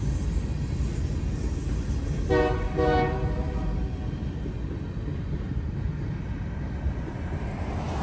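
Freight train of covered hopper cars rolling past with a steady low rumble, which eases as the last cars go by. About two seconds in, the train horn gives one short blast. Near the end a car passes close by.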